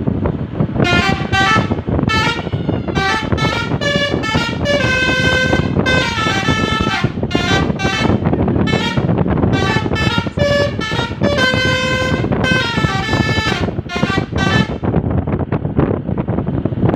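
Basuri telolet horn on a bus, a multi-note musical air horn, playing a quick tune of short tooting notes over steady wind and road rumble. The tune stops about two seconds before the end, leaving only the rumble.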